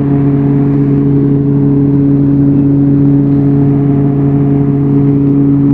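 Engine of a tracked logging machine running steadily at constant speed, a steady even hum with no change in pitch.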